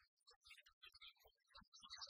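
Near silence, with only faint scattered ticks.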